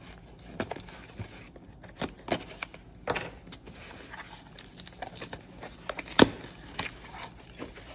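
A small cardboard box being opened by hand, its taped flaps pried and pulled up: scattered rustles, scrapes and crackles of cardboard and tape, with one sharp snap about six seconds in.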